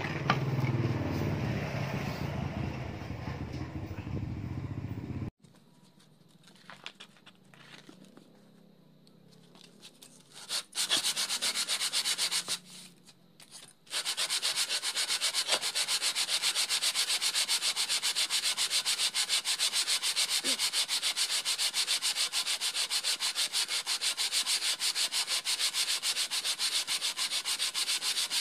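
A diesel engine cylinder head being rubbed back and forth by hand on petrol-wetted sandpaper laid on glass, lapping its warped face flat: rhythmic scraping strokes. The sound stops abruptly about five seconds in, comes back briefly, then runs on in steady, even strokes from about halfway.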